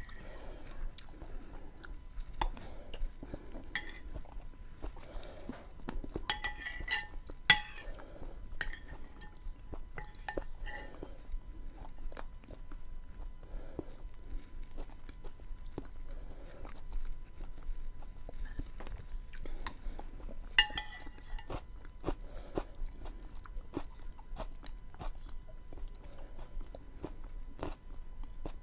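Close-miked chewing and wet mouth sounds of someone eating a bean stew with onion and tomato, a steady run of small clicks and smacks. Two sharper clicks with a short ring stand out, about seven seconds in and again about twenty seconds in.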